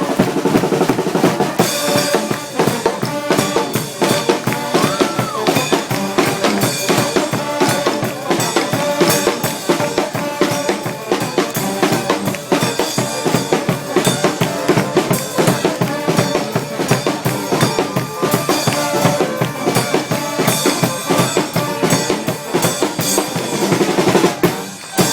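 Marching band playing live, with snare and bass drum beating out a steady rhythm under brass horns.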